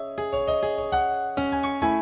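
Music: a keyboard, piano-like, playing a melody of ringing notes over held chords, a new note struck every half second or so.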